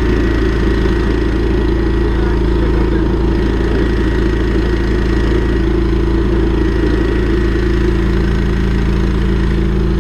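Drain-jetting machine's engine running at a steady speed while it jets the drain.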